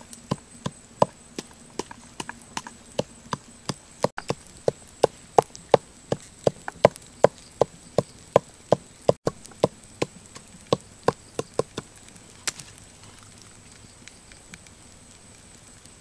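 Chili peppers pounded with a pestle in a small bowl: a steady run of knocks, about two or three a second, that stops about twelve seconds in.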